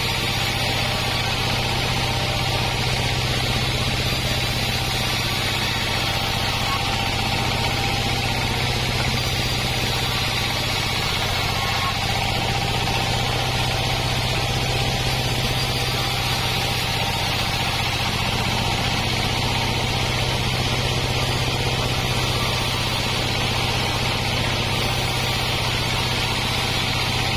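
Homemade band sawmill running steadily while its blade saws through a waru log: a constant low hum from the drive under an even hiss of cutting, with no change in level.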